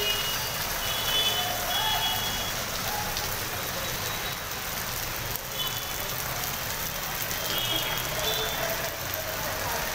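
Steady hiss of heavy rain and floodwater running over a flooded road, with a few short high-pitched beeps now and then.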